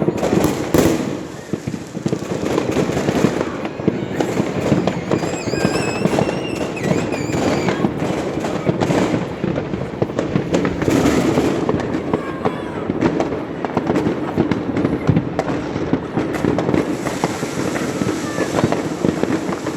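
Fireworks going off without pause: a dense run of bangs and crackles, with a whistling tone that glides up and down about five seconds in.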